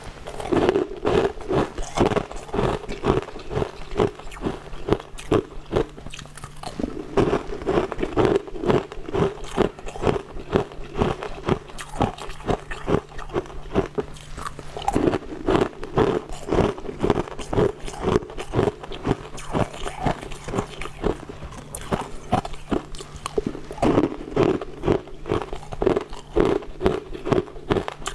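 Frozen purple ice cubes being bitten and chewed close to the microphone: rapid, repeated crisp crunches with short lulls between mouthfuls.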